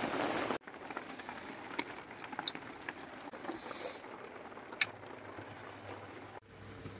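A few handling clicks, then a sharp switch click about five seconds in as a De'Longhi fan heater is turned on, followed by the faint low steady hum of its fan running.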